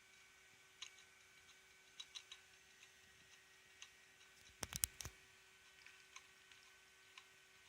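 Failing hard disk drive clicking irregularly, with a quick burst of about five louder clicks near the middle, over a faint steady hum. The clicking is the sign of a dying drive struggling to read, with hardware ECC errors piling up and reallocated sectors climbing fast.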